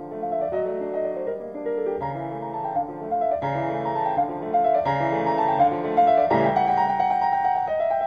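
Background piano music, a run of melody notes over changing chords.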